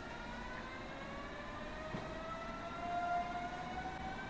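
Berlin S-Bahn electric train accelerating: its traction motors give a whine of several tones that rise slowly and steadily in pitch. A single short knock about two seconds in.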